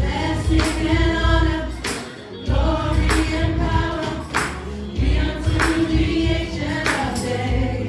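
Choir singing a gospel worship song over a band, with a strong bass line and percussion striking on the beat.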